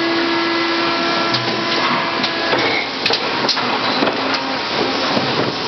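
Factory floor machinery running: a steady mechanical din with a held hum that stops about two and a half seconds in, then scattered clicks and clanks.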